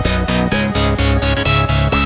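Electronic dance music with a fast, steady beat and synth notes that slide upward in pitch.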